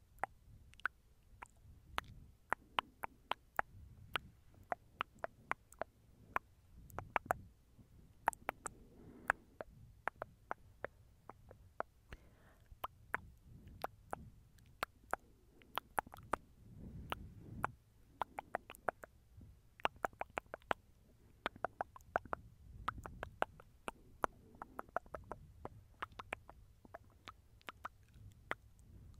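Close-miked ASMR mouth sounds: a quiet, irregular run of wet clicks and smacks, several a second, over a faint low rumble.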